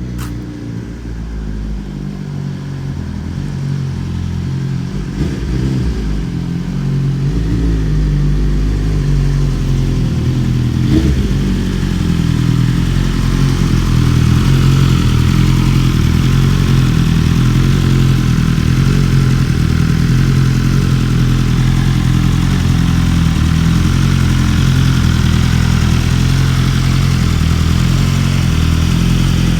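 BMW S1000RR inline-four through an Akrapovic exhaust, running at a steady cruise with throttle held by cruise control. The engine note grows louder over the first dozen seconds or so, then holds even.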